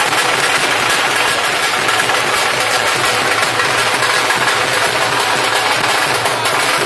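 Loud, steady din of drumming, a dense wash without breaks.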